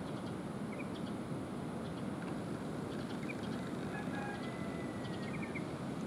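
Steady rushing background noise with a few faint, short bird chirps scattered through it, and a thin, drawn-out call a little past four seconds in.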